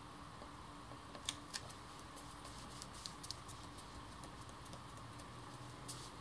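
Faint scattered light clicks and taps, a handful of them, from fingers pressing and smoothing a cardstock art panel down onto a cardstock frame.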